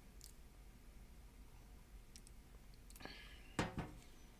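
A tea mug being set down: two sharp knocks less than a second apart near the end, just after a short rustle, with a few faint clicks earlier in an otherwise quiet room.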